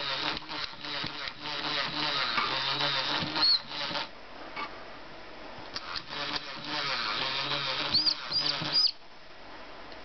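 FurReal Friends baby parrot toy reacting to a feeding bottle in its mouth: buzzing, whirring feeding sounds in two stretches of about four and three seconds, each ending with short high chirps.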